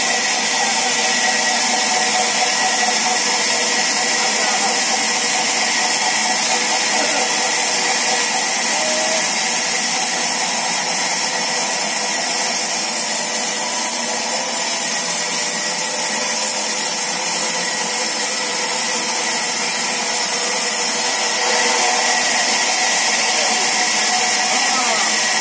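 Sawmill machinery running steadily: a loud, even, hiss-like din that does not rise or fall.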